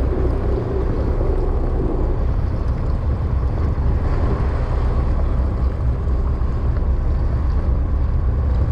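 Steady low rumble of a boat under way at sea, its engine running, with wind buffeting the microphone.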